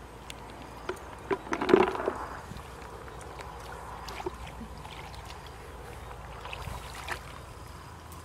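Hands and legs splashing in shallow muddy ditch water, with a burst of louder splashes about a second and a half in, then quieter sloshing and occasional light splashes as the hands grope in the mud for fish.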